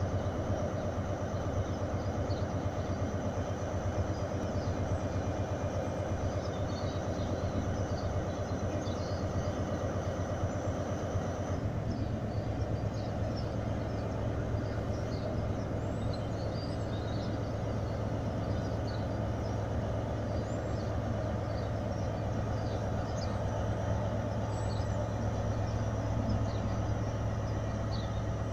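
Diesel engines of a Class 43 HST power car set running steadily at standstill, then stepping up to a higher, fuller note about twelve seconds in as the train opens up and pulls away. Small birds chirp faintly over it.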